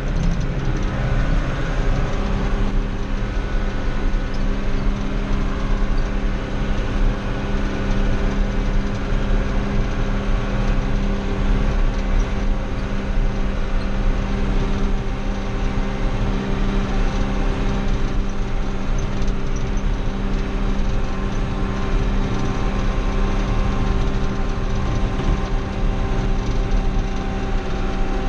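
Old John Deere tractor's engine running steadily as the tractor is driven along, heard from inside its cab.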